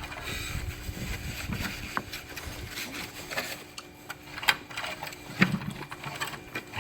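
Brother VX-1120 sewing machine running, its motor and needle mechanism making a steady clattering noise with scattered clicks. It starts suddenly and runs on throughout.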